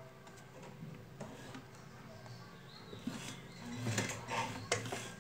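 Light clicks and rustles of fabric being handled and set under a sewing machine's presser foot. Sharper clicks and taps come in the last two seconds.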